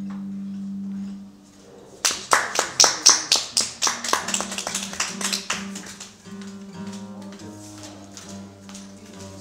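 Amplified acoustic guitar played solo: a held low note dies away about a second in, then a quick run of sharp percussive hits on the guitar, several a second, gives way to quieter plucked notes.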